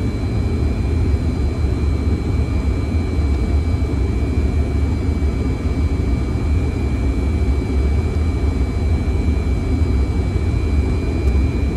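Fokker 100 flight deck on final approach: a steady low rumble of airflow and engines, with a thin steady high tone above it.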